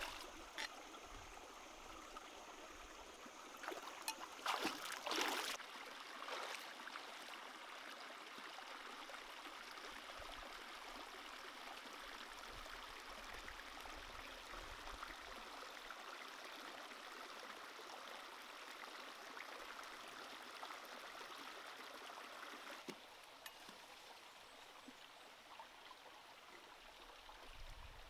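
Shallow rocky stream flowing steadily over stones, with a few louder splashes about five seconds in. The flow sound becomes quieter near the end.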